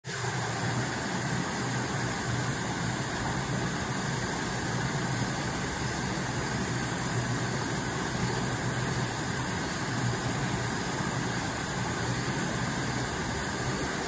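Steady outdoor background noise: an even low rumble with hiss, like distant city traffic. No calls from the kingfisher stand out.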